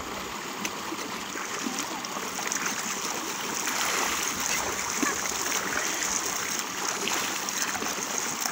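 Water splashing in a shallow irrigation channel as hands slap the water and a bucket of water is poured, over a steady rush of water gushing into the channel from a tubewell outlet. The splashing picks up a few seconds in.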